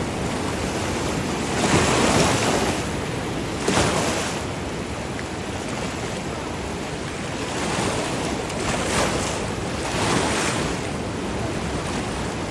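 Shallow sea waves washing and lapping at the shore in a steady wash that surges louder several times, strongest about two seconds in, with some wind on the microphone.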